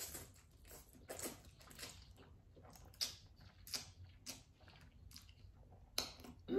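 A person chewing a mouthful of spicy Buldak kimchi instant noodles close to the microphone: faint, irregular wet mouth smacks and clicks.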